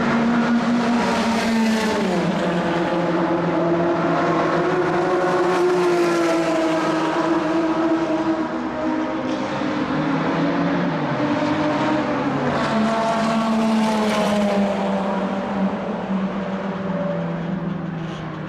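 1960s racing car engines running at speed, the engine note rising and falling as the cars change gear and pass, with a sharp drop in pitch about two seconds in.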